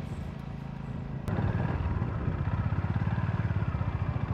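Honda GB350's single-cylinder engine, first a steady hum while riding, then after a cut about a second in, a louder, even low thumping beat at low revs as the bike is ridden slowly through tight turns.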